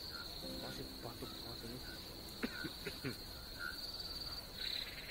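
Night insects, crickets, trilling in a steady high-pitched chorus, with a few brief clicks about halfway through.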